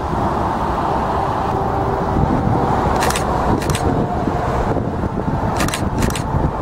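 Jet airliner engines running: a steady whine over a deep rumble. A few short clicks about three seconds in and again near the end.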